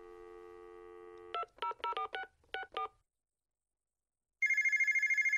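Telephone sound effect: a steady dial tone, then a quick run of about eight touch-tone keypad beeps as a number is dialled, a pause, and then a trilling electronic phone ring that starts about four seconds in.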